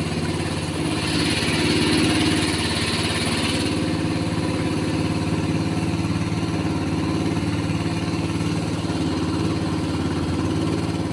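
Small wooden longboat's engine running steadily under way, with a hiss of water over the top for a few seconds near the start.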